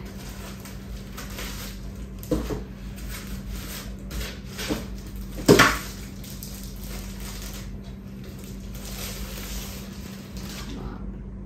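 Unboxing handling noise: a laptop lifted out of its foam packing insert and slid out of a clear plastic sleeve, the plastic rustling. There are a few knocks, the sharpest about five and a half seconds in, and the rustling is thickest near the end.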